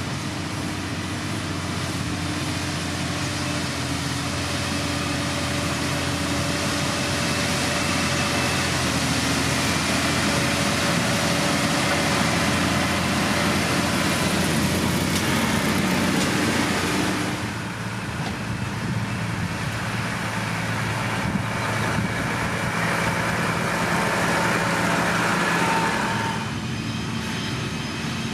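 Diesel engine of heavy road-building machinery running steadily under load, with a constant whine over the engine note. The sound dips briefly a little past halfway and eases off near the end.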